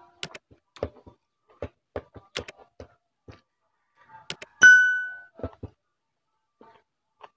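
Close eating sounds of someone eating with their hands: a string of short mouth smacks and clicks. About four and a half seconds in, a couple of sharp clicks are followed by the loudest sound, a bright bell 'ding' sound effect that rings out for about half a second.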